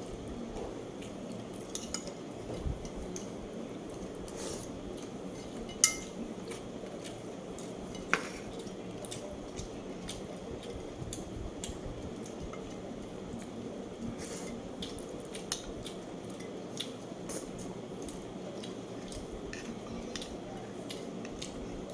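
Cutlery clinking and scraping against dishes during a meal, in scattered small clicks with two sharper clinks about 6 and 8 seconds in, over a steady background hiss.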